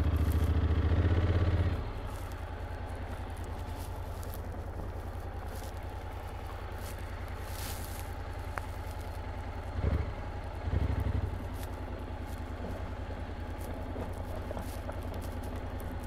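Honda NC750X's parallel-twin engine running steadily at low revs, with a louder stretch in the first two seconds and two short swells about ten and eleven seconds in.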